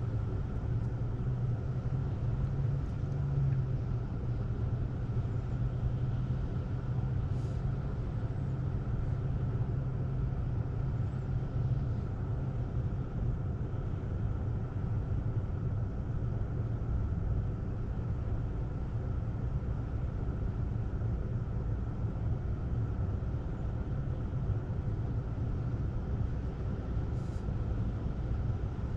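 Car engine running with a steady low rumble, heard from inside the cabin.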